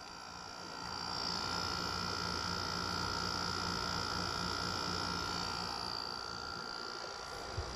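Frigidaire 5000 BTU window air conditioner running on high: a steady fan rush with a low hum and a thin whine. It gets louder about a second in and eases slightly near the end. The unit is working normally and cooling.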